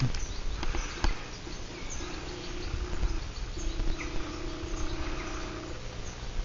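Outdoor ambience while walking: small birds chirping now and then over low footstep thumps and handling noise, with a steady low hum that comes in for a few seconds in the middle.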